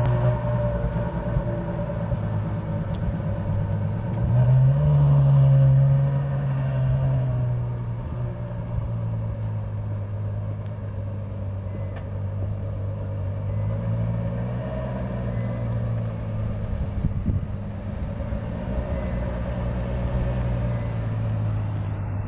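Ferrari FF's 6.3-litre V12 running cold, its exhausts steaming, with a short rise in revs about four seconds in, then a steady low note as the car moves off slowly.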